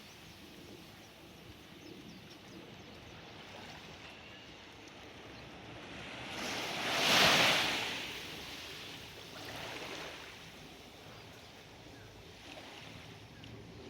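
Sea waves washing onto a beach: a low steady wash of surf, with one loud wave breaking about halfway through and a smaller one a few seconds later.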